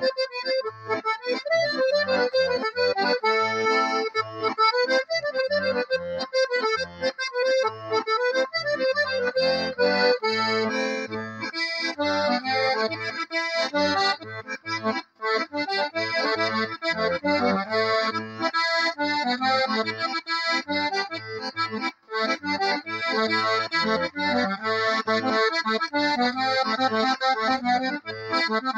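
Hohner diatonic button accordion playing a traditional tune: a melody on the right-hand buttons over bass notes and chords in a steady beat. The sound drops out for an instant twice, about fifteen and twenty-two seconds in.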